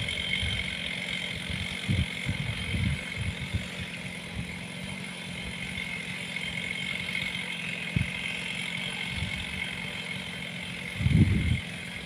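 Chainsaw engine idling steadily, with gusts of wind buffeting the microphone as low rumbles, the strongest near the end.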